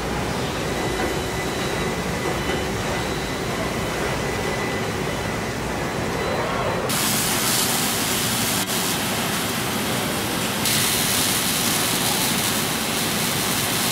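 Steady industrial din of a car body-shop line with robotic spot welders and machinery running. It changes abruptly about seven seconds in, when a brighter hiss comes up, and again near eleven seconds.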